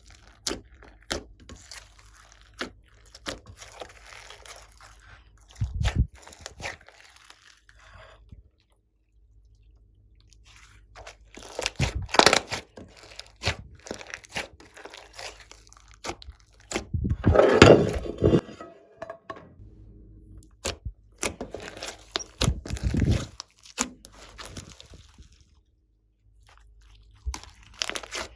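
Glossy slime being squeezed and kneaded by hand, giving many sharp crackling clicks and pops, with denser bursts about twelve and eighteen seconds in and two short quiet pauses.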